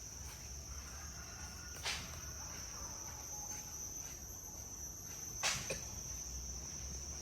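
Insects trilling steadily at a high pitch over a low background hum, with two faint knocks about two seconds and five and a half seconds in.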